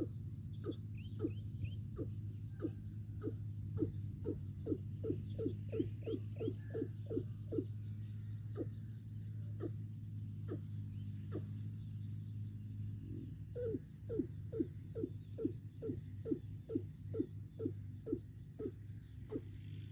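Watercock calling: a long series of short, deep notes, about two a second, speeding up and then slowing, then a second series after a short pause, over a steady low hum.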